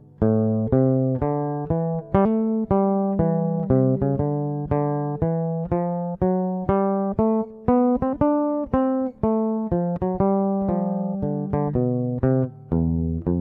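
Luna Tattoo bass ukulele with flatwound metal strings, tuned like a guitar's four lower strings, played solo: a single-note melodic line of plucked notes, about two or three a second, each ringing and dying away. It has a smooth, jazzy tone, and a lower note is plucked near the end.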